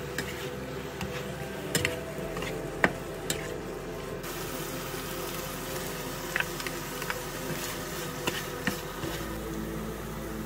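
Chicken frying in a nonstick pan with a steady sizzle, as a spatula stirs it and knocks against the pan in sharp clicks now and then, the loudest a little under three seconds in.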